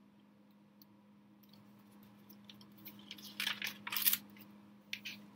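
Paper pages of a spiral-bound sketchbook being turned, a few quick rustles in the second half, the loudest about three and a half to four seconds in, over a faint steady hum.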